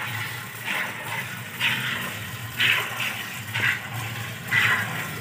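Water buffalo being milked by hand: squirts of milk hissing into a plastic bucket of frothy milk in an even rhythm, about once a second, over a low steady hum.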